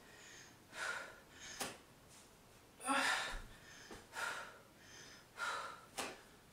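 A woman breathing hard under exertion: short, forceful breaths about every second or so.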